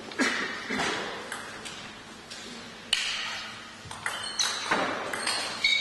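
Table tennis ball clicking off rackets and the table during a rally, a string of sharp, irregularly spaced hits that come faster in the last couple of seconds. Each hit rings briefly in the hall.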